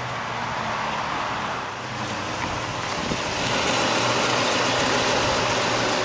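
A 1999 Volvo S70's turbocharged 2.4-litre inline-five idling: a steady low hum under an even hiss that gets louder about three and a half seconds in.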